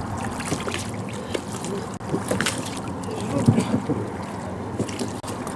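Water sloshing and splashing around a man in the water as he hauls himself up onto the outboard motor's anti-cavitation plate at the stern of an inflatable boat, with scattered knocks against the boat and motor.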